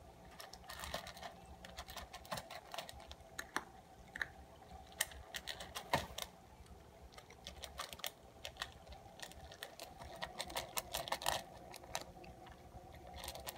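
A cat crunching dry kibble from a stainless steel bowl: an irregular run of small, sharp crunches and clicks.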